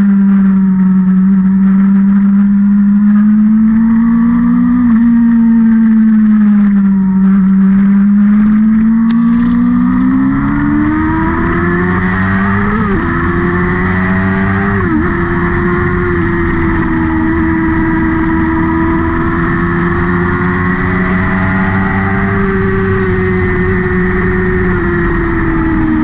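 A vehicle engine running hard around a race circuit, its note falling and rising through the corners. It climbs through two quick gear changes around the middle, then holds fairly steady at higher revs.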